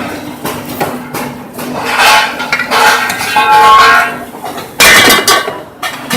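Metal parts clinking and clanking, some with short ringing tones, over the steady hum of a running machine; a loud metallic clatter comes about five seconds in.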